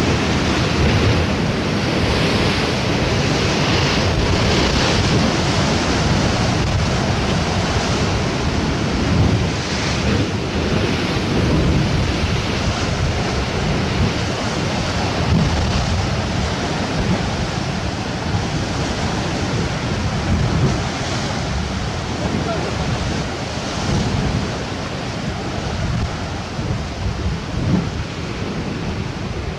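Sea surf washing in steadily, with waves swelling and easing every few seconds, under wind rumbling on the microphone.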